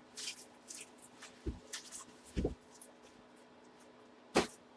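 Hands moving items about on a table: brief rustling, two soft thumps in the middle and a sharper knock near the end as something is set down.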